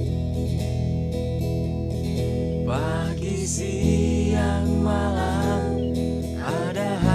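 Background music: a song with guitar accompaniment, with a voice singing a wavering melody from about three seconds in.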